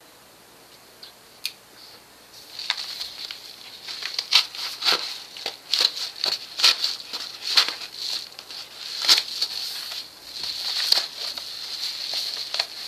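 Hands crinkling and tearing open a padded paper mailer envelope: irregular paper rustles and sharp crackles, starting about two seconds in after a single click.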